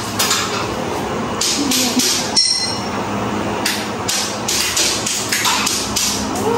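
Repeated sharp tapping strikes, like hammering, coming in short runs of about three a second. A brief high squeal comes about halfway through.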